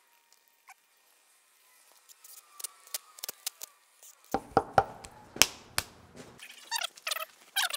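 Sharp plastic clicks and knocks as a plug housing and tools are handled, then a cordless drill runs for about two seconds, followed by a few more rattling clicks.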